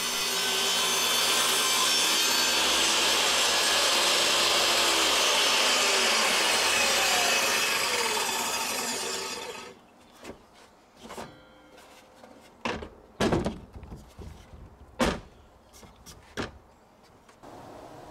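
Compact jobsite table saw running and cutting through a plywood drawer box, then winding down and falling quiet about nine and a half seconds in. After it come a few sharp wooden knocks as the cut halves are handled.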